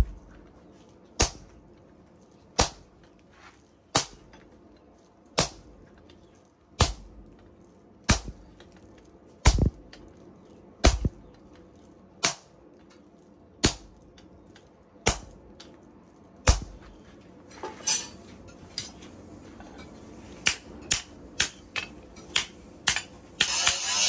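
Sledgehammer blows on a red-hot steel cleaver blade on an anvil, metal striking metal in a slow, even beat of about one heavy strike every second and a half. After about 17 seconds the strikes turn lighter and quicker, like hand-hammer blows. Music comes in just before the end.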